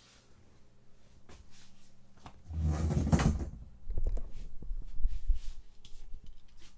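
Handling noise as die-cast toy cars are held and carried to the track: a loud low rustling burst a few seconds in, then a run of soft thumps and small clicks.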